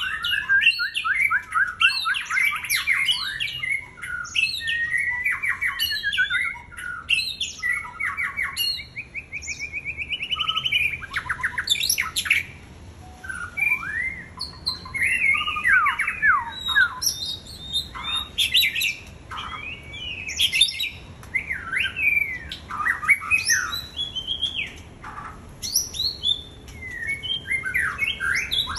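White-rumped shama singing a long, varied song: sweeping whistles, rapid trills and short harsh notes in quick succession, with a few brief pauses.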